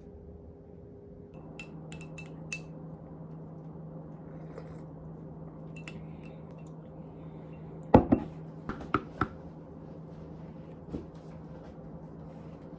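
Tableware clinking and knocking while eating: an orange plastic spoon and a white ceramic bowl and mug tapping against each other and the table. There are a few light clicks about two seconds in and the loudest knocks in a quick cluster about eight seconds in, all over a steady low hum.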